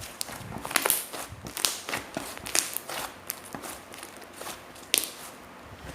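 Homemade slime being squeezed and worked by hand, giving irregular crackling pops and squishes, with a few louder pops among them.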